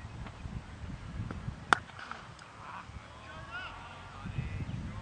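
Cricket bat striking a leather ball once, a single sharp crack a little under two seconds in, on a shot that goes for four runs.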